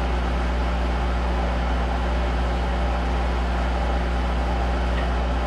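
Monarch 10EE engine lathe running steadily at speed while turning a small steel part, a constant low hum with an even mechanical whir over it.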